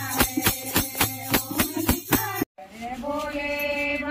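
Devotional kirtan: women singing with rhythmic hand-clapping and drum beats, about four to five strokes a second. About two and a half seconds in it cuts off abruptly and gives way to sustained group chanting.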